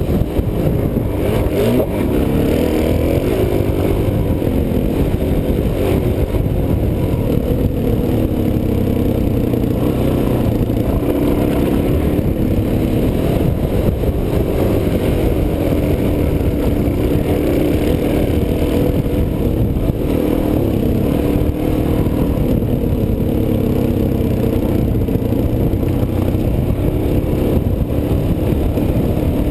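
Suzuki DR-Z400S single-cylinder four-stroke engine running under load as the bike rides a dirt trail, its pitch rising and falling with the throttle. It is heard through a helmet-mounted camera with a steady low rumble underneath.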